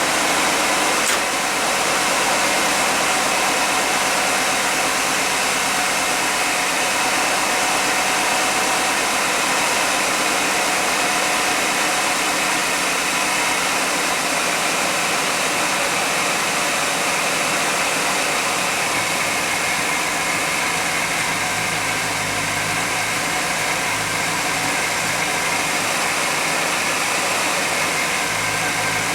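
1991 GMC Jimmy engine idling steadily under a broad, even hiss, while the engine is checked for a vacuum leak.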